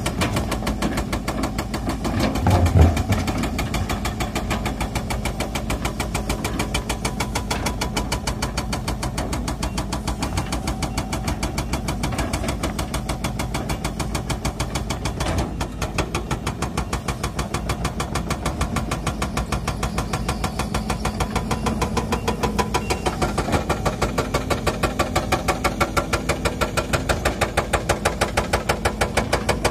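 Sumitomo 130 excavator's diesel engine running steadily with an even, fast pulsing beat while its bucket digs stony soil. A single heavy thump about three seconds in is the loudest moment.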